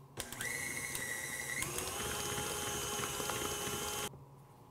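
Electric tilt-head stand mixer running as it beats a thick cream cheese and peanut butter mixture, a steady motor whine whose pitch shifts about a second and a half in as the speed changes. It stops abruptly about four seconds in.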